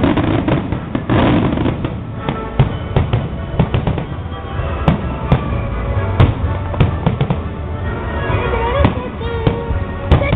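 Fireworks display: many aerial shells bursting in quick succession, a dense, continuous string of bangs over a low rumble.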